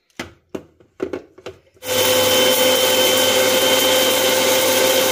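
A few light knocks as the jar is set on an electric mixer grinder. About two seconds in, the grinder starts and runs at a steady whine, grinding dried Akabare chillies dry.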